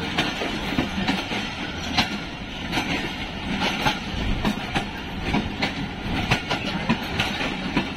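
Moving passenger train: wheels clicking over rail joints at uneven intervals above a steady rumble of the running gear.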